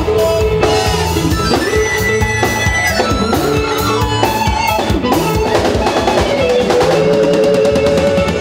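Live band playing instrumental music: drum kit, electric bass, guitar and keyboard.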